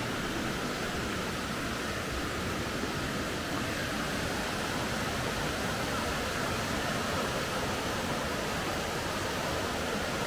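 Steady, unbroken rush of falling water from a waterfall or fast mountain stream.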